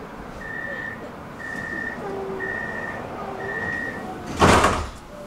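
Tram door-closing warning: four high beeps about once a second, then a short loud burst of noise about four and a half seconds in as the doors shut.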